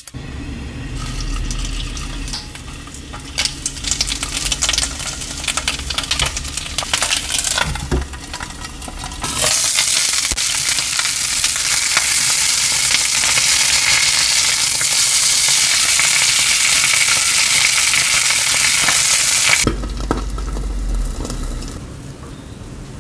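Fish pieces frying in oil on a ridged fish grill pan, a crackling, popping sizzle. About nine seconds in it turns into a loud, steady sizzle, then drops back to a quieter sizzle about twenty seconds in.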